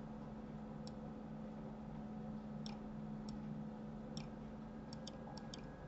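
Computer mouse's left button clicking, about seven short sharp clicks at irregular intervals, over a faint steady low hum.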